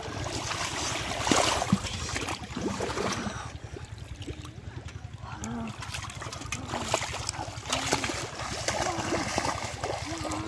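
Shallow muddy water splashing and sloshing as a person wades and gropes through it by hand, in short irregular splashes, with faint voices behind.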